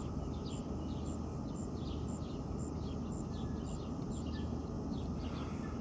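Outdoor ambience: a bird chirping over and over in short falling notes over a steady background hiss, with a faint high tick repeating about twice a second.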